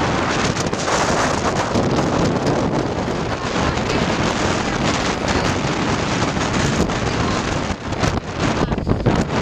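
Strong hurricane wind buffeting the microphone, a loud steady rushing noise, with choppy bay surf breaking underneath.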